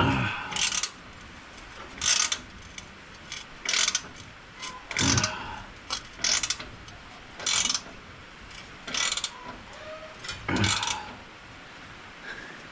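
Ratchet wrench being worked on a bolt: a short burst of pawl clicking on each return stroke, about eight strokes, one every second and a half or so.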